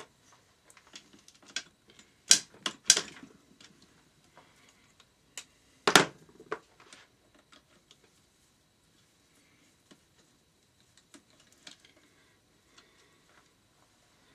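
Hand tools clicking and knocking on a Yamaha XT600 engine while the cam-sprocket bolts are undone: scattered light metal ticks, with a few sharper knocks about two seconds in, near three seconds and near six seconds.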